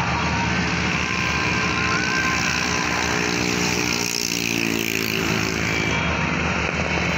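A steady engine drone, with a stronger humming engine note swelling in from about three and a half seconds in and fading by six.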